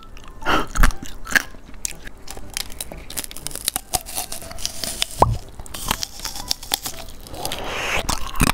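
Biting and chewing candied yellow-apple tanghulu: the hard-set sugar shell and crisp apple crunch in irregular cracks and clicks, the coating hard enough to resist the bite.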